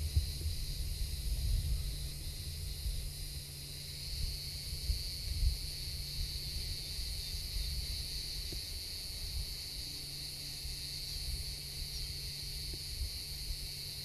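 Steady high buzzing of insects, cicadas in the pine trees, with a gusty low rumble of wind on the microphone.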